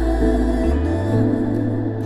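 Background music: sustained, drone-like tones with a held bass note and a melodic line, ambient and devotional in character.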